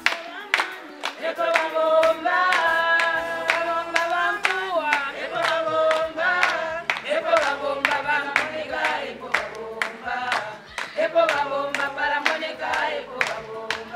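A group of voices singing a song together in chorus, with regular rhythmic hand-clapping.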